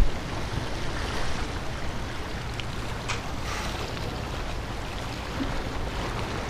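Steady rush of waves washing against the inlet's jetty rocks, with wind rumbling on the microphone; a couple of light clicks about three seconds in.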